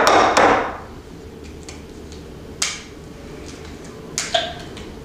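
A few sharp kitchen knocks as eggs are handled: a loud crack with a short crunch at the start, another sharp click about two and a half seconds in, then a spoon knocking with a brief ring against a ceramic mixing bowl near the end.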